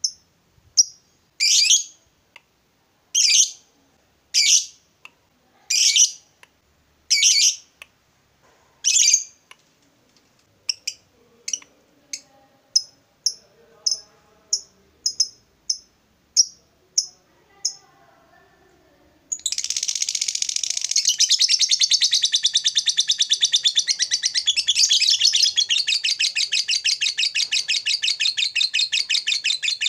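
Fischer's lovebird calling: sharp high chirps about a second apart, then a quicker run of short chirps about two a second. From about two-thirds of the way through, a long, fast, unbroken chattering trill, the 'ngekek panjang' that lovebird keepers prize.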